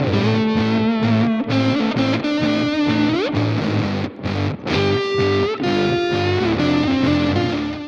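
Background music: distorted electric guitar playing held notes over a steady low beat, with one note bending up in pitch about three seconds in.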